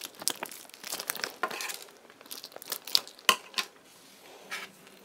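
Hands squeezing a glue-coated rubber balloon skin to push out the last Orbeez water beads: a quick run of sticky crackles and clicks, with the sharpest click a little after three seconds, thinning out near the end.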